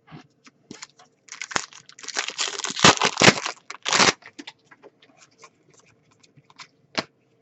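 Trading cards and their packaging being handled: scattered light clicks, then a stretch of rustling from about a second and a half in to about four seconds, then a few faint clicks.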